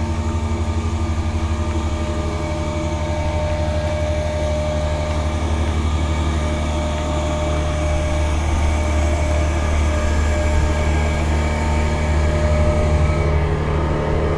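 Steady, loud, low machine hum with a few constant tones above it, as from heavy machinery running continuously.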